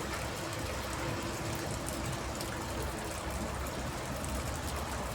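Rain falling on a water tank: a steady patter dotted with many small drop ticks.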